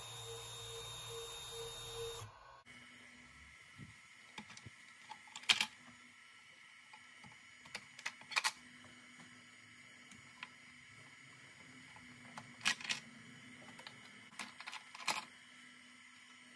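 Comgrow ROBO 3018 desktop CNC router running as it mills a copper-clad PCB, cutting off abruptly about two seconds in. This is followed by a few sharp metallic clicks and clinks as the hold-down clamps are loosened and handled on the aluminium bed.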